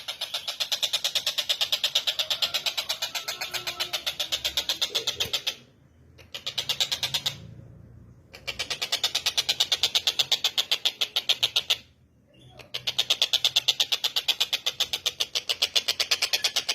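Tengkek buto (stork-billed kingfisher) calling: a fast, harsh rattling trill of about ten notes a second, given in long bouts with three short breaks.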